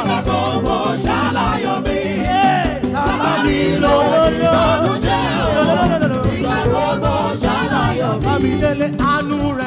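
Gospel praise music: voices singing a wavering melody over held instrumental notes and a steady percussion beat.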